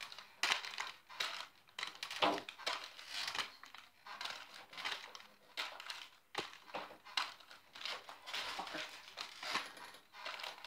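Thin, taped layers of gift wrapping being ripped and crumpled by hand in a hurry: rapid, irregular crinkling and tearing with sharp crackles.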